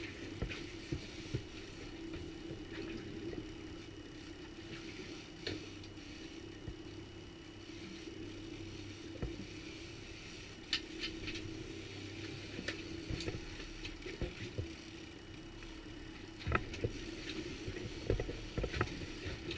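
Outboard motor running steadily, with a few sharp clicks and knocks scattered through, a small cluster about eleven seconds in.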